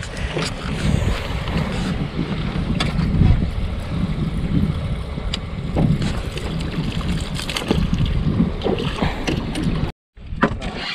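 Wind blowing on the microphone in a small open boat, with scattered light clicks and knocks. The sound cuts out briefly near the end.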